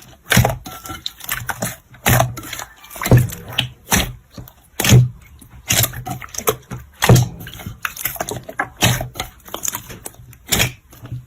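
Hands squeezing and pressing slime: sticky squelches and crackling pops, with a heavier squish every second or two.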